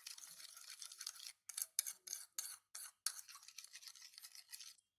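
Spoon stirring washing powder and water briskly in a cup, a rapid scratchy scraping against the cup while the detergent is whipped up into foam. It stops shortly before the end.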